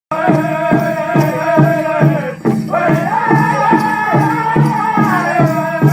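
Powwow drum group singing in sustained, high-pitched voices over a steady beat on a large powwow drum, a little over two beats a second; the singing breaks off briefly about halfway through and picks up again.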